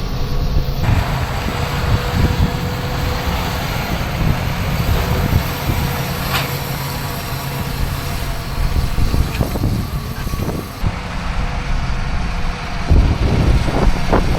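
Tractor engine running steadily with a low rumble. The sound changes abruptly a few times.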